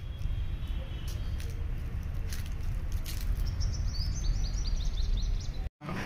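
Outdoor ambience: a steady low rumble with a small bird chirping in a quick run of short repeated calls about four seconds in. The sound cuts out for a moment just before the end.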